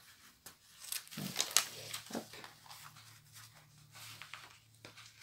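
Clear protective film being peeled back from the glue-coated surface of a diamond painting canvas: scattered light crackles and rustles as the plastic comes away from the adhesive. A faint low hum comes in about a second in.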